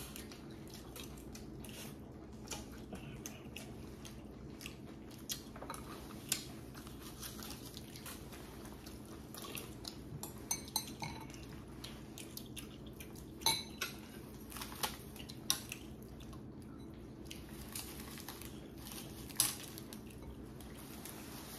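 Chopsticks clicking and scraping against a ceramic bowl as food is picked up, with scattered sharp clicks and some chewing, over a steady low hum.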